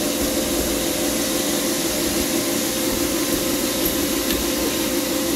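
Steady hum of running machinery, with one steady mid-pitched tone and no distinct events.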